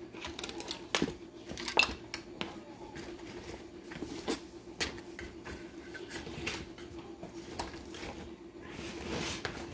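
Small hard objects being handled and set down: a string of scattered light clicks and knocks, over a steady faint hum.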